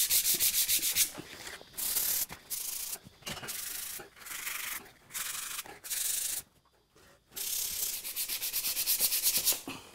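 Hand sanding of small dried filler patches with a piece of 120-grit sandpaper folded in thirds. Quick back-and-forth scratchy strokes come in short bouts, one spot after another, with a brief pause about two-thirds through. The patches are being taken down flat.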